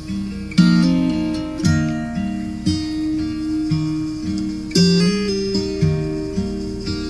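Acoustic guitar intro of a pop ballad, plucked chords about one a second with no singing, played back through an aftermarket car audio system: Hertz tweeters, door woofers and subwoofer.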